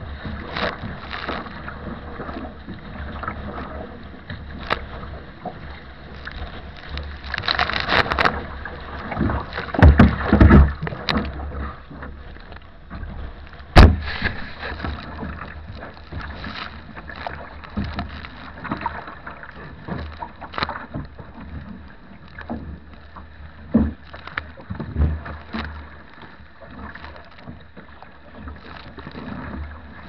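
Wooden sea kayak pushing through wind-driven chop: water splashing and slapping against the bow and across the deck, over a steady rumble of strong wind on the deck-mounted microphone. Irregular heavy thumps of waves hitting the hull, the loudest about ten and fourteen seconds in.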